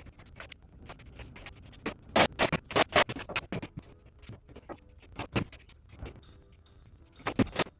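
Irregular clicks, taps and light clanks of metal parts and hardware being handled during tool-cart assembly, loudest in short clusters about two seconds in and again near the end.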